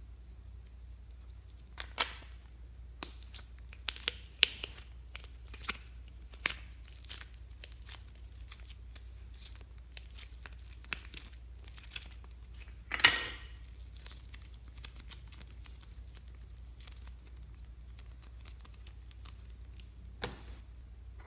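Slime being handled: scattered sticky crackles and small pops, then a louder crackling burst about midway and one more sharp crackle near the end.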